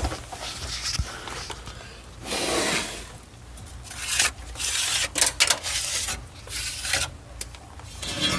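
Irregular rubbing and scraping of things being handled, with a short low thump about a second in.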